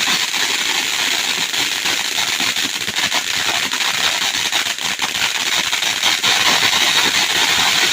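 Consumer firework fountain spraying with a steady hiss and dense crackling, the crackle thickest about halfway through.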